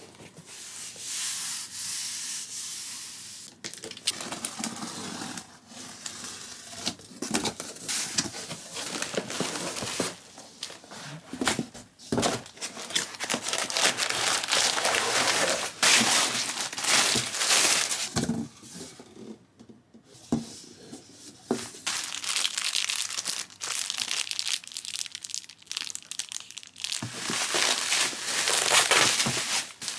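Wrapping being crinkled and torn, in irregular spells of a few seconds with short pauses between them.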